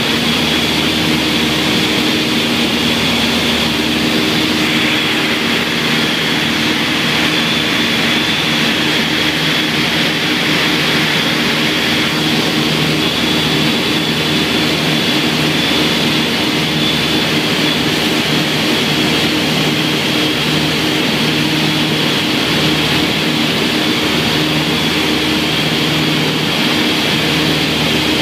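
Twin piston engines and propellers of a light twin-engine aircraft running steadily in flight, heard inside the cockpit: a steady hum with a thin high whine over a hiss of airflow.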